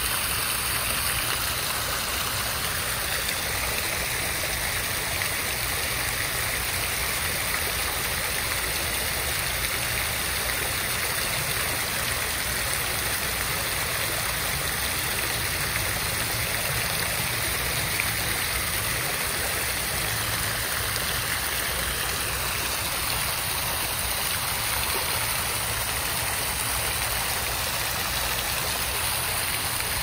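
Water fountain running: a steady, unbroken splash of falling water.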